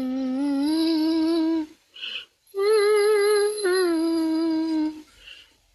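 A woman humming a slow tune in long held notes with a slight waver. One long note is followed by a short break about two seconds in, then a higher note that steps down to a lower one before fading out near the end.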